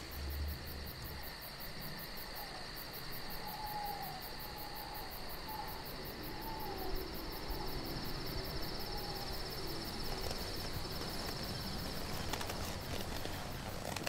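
Night-time insect chorus: a steady, high, fast-pulsing chirring, with a few faint short falling notes in the middle.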